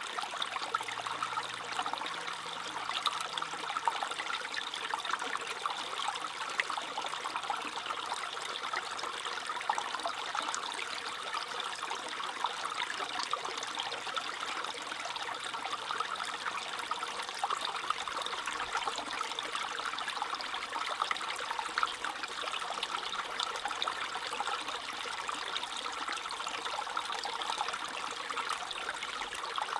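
Small stream trickling and babbling over stones, a steady splashing flow with fine droplet sounds.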